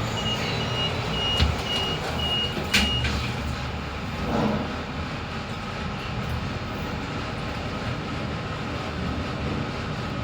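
An elevator's electronic beeper sounding about six short, high, evenly spaced beeps, with a sharp knock among them and another as they stop, followed by the lift's steady running hum.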